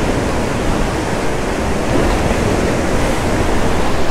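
Steady rushing wash of sea waves, with wind buffeting the microphone in a low rumble.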